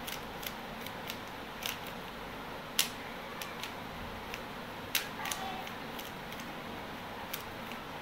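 3x3 Rubik's cube turned by hand in a solve: irregular plastic clicks as the layers snap round, with two louder clacks about a third and two-thirds of the way through, over a steady background hiss.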